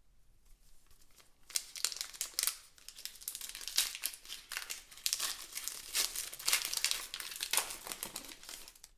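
Crinkly trading-card packaging crinkling and crackling as it is handled and opened. It starts about a second and a half in and stops abruptly near the end.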